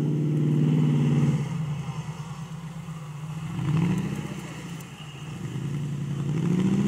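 Off-road trial buggy's engine revving in bursts as it crawls over rough ground. It is held high for about a second at the start, then drops back, swells briefly near the middle, and rises again near the end.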